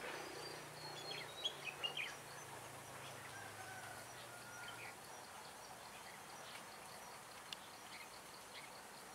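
Red-whiskered bulbuls calling faintly: a cluster of short chirps and quick downward-sliding notes in the first couple of seconds, then a few brief whistles, over a steady background hiss.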